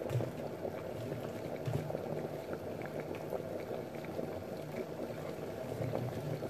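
Water in a small electric pot coming to the boil: a steady bubbling rumble. Faint clicks and scrapes of a spoon mixing cream cheese in a plastic tub.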